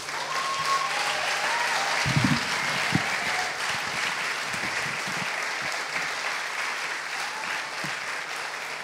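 Audience applauding at the end of a spoken-word piece.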